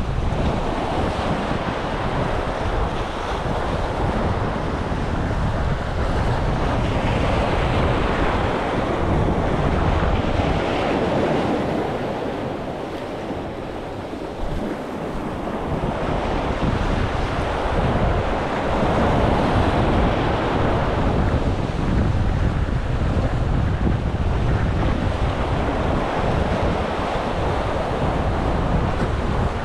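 Sea waves washing and breaking against a concrete-block breakwater, swelling and easing every few seconds, with wind rumbling on the microphone.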